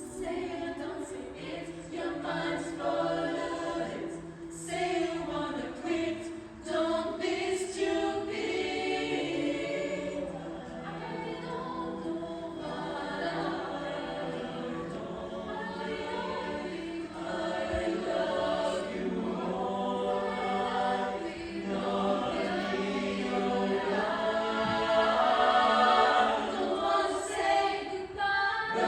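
Pop vocal ensemble singing a cappella in several parts, with sustained low vocal notes under moving upper voices; it grows louder toward the end.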